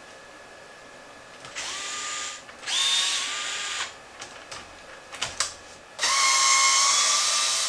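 Cordless electric screwdriver running in three short bursts, the third the longest and loudest, backing out the pin and tie-rod screws of an RC truck's steering knuckle. A few small clicks between the second and third bursts.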